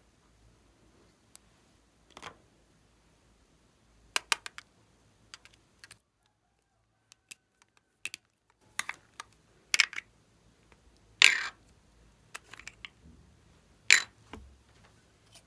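Plastic makeup containers being handled and opened: scattered sharp plastic clicks and knocks, with the two loudest about eleven and fourteen seconds in, as a sphere lip balm's two halves come apart.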